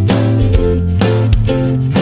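Background music: strummed guitar chords over a steady bass line, with a new strum about twice a second.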